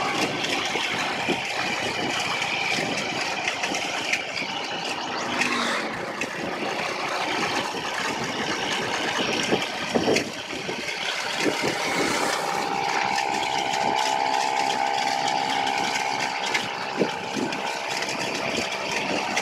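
Small engines running on the move: a continuous engine drone mixed with rushing road and wind noise, from a motorized bicycle and the motorbike riding just behind it. A steadier, higher engine drone comes in about two-thirds of the way through.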